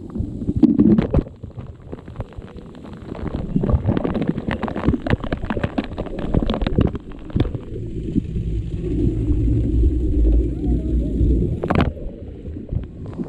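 Rider sliding through a tight, enclosed plastic waterslide tube: rushing water with many knocks and bumps of the body and head-mounted camera against the tube walls, turning into a steady low rumble in the second half. It ends with a splash into the pool about twelve seconds in.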